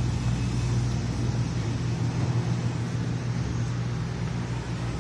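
Steady machinery running aboard a food truck: a low, even hum with an airy hiss over it that does not change.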